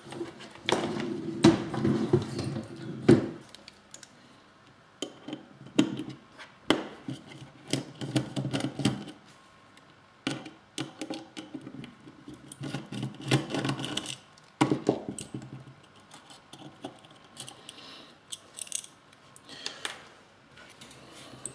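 Hands and a screwdriver working on a circuit board: a string of small sharp clicks and taps with a few stretches of rubbing and scraping, as the screws are taken out and the mini PCIe LoRa concentrator card is lifted off the board.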